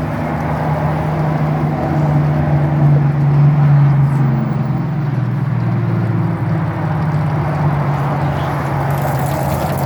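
A motor engine running steadily with a low hum that swells louder for a couple of seconds near the middle, then settles.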